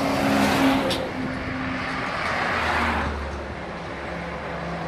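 Heavy trucks passing close on a road: a steady rush of engine and tyre noise, loudest in the first second as a big truck goes by, then easing into a lower engine rumble as the next truck approaches.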